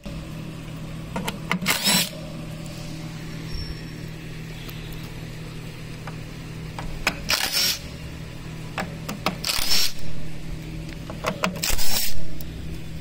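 Cordless driver with a long extension and T25 bit, running in four short bursts as it backs screws out of a recliner's rocker-spring mounts, over a steady low hum.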